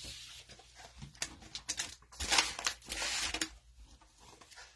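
Cellophane wrapper of a trading card pack crinkling and tearing, with a few sharp clicks and snaps of cards being handled.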